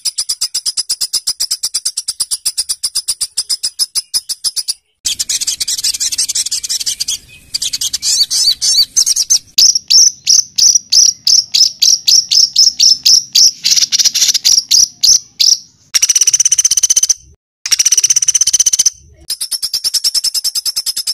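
A songbird's harsh, rapid-fire repeated notes, the 'tembakan kasar' type of call, delivered as fast high-pitched trills. In the middle comes a run of about five falling notes a second, and the song stops and restarts abruptly several times as spliced segments.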